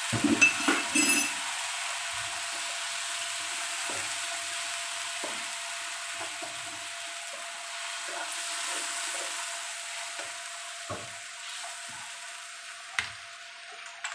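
Shallots and garlic sizzling in a vinegar-and-sugar sauce in a wok, stirred with a nylon spatula. A burst of scraping and clatter in the first second or so, then a steady sizzle with a few single knocks of the spatula, slowly fading.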